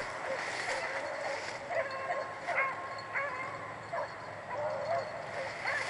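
Rabbit hounds baying and yipping on a swamp rabbit's trail, with many short overlapping cries rising and falling in pitch.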